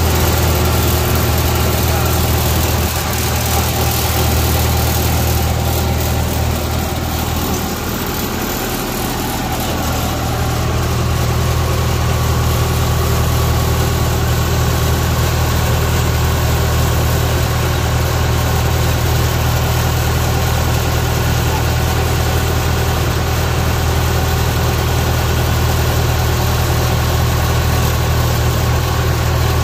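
Diesel engine of a Kubota DC95 rice combine harvester running steadily at low speed, with a deep even drone that eases slightly about eight seconds in and then holds steady.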